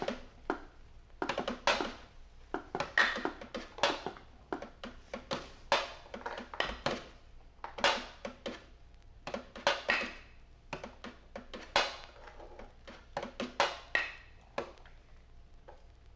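Loose, irregular clattering strikes, a few a second with no steady beat, thinning out near the end, leaving a faint steady tone.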